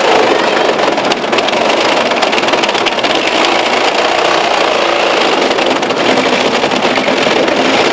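Steady engine drone of the gas-powered hydraulic pump that drives the rescue tools, running under load during a vehicle extrication.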